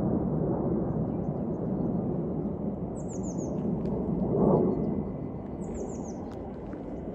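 A small bird calling twice, each call a quick falling series of four or five high chirps, over a steady low rushing noise that swells briefly in the middle.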